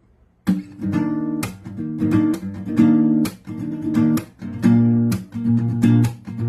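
Acoustic guitar strummed in a steady rhythm, playing a song's intro chords; it starts about half a second in.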